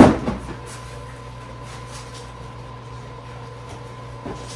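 A sharp knock as a sofa back section is pulled off its slide-in brackets, followed by a few faint light knocks of the panel being handled over a steady background hum.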